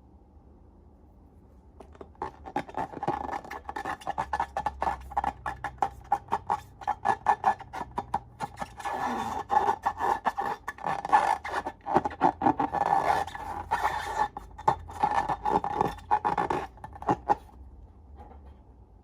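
Slime being squeezed and worked by hand with long rubber balloons: a dense run of small crackling, sticky clicks that starts about two seconds in and stops near the end.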